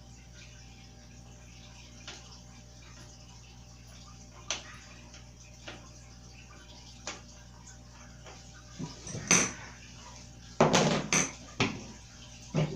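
Scattered metallic clicks and knocks from bike parts and hand tools being handled during assembly. The knocks grow louder and closer together about nine seconds in, with a short clatter near the end.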